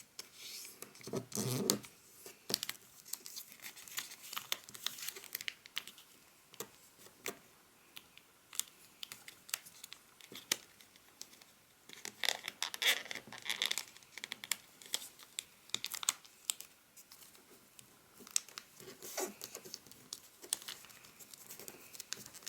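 Sheet of origami paper being folded and creased by hand: crinkling and rustling with many sharp little clicks, in several spells of handling.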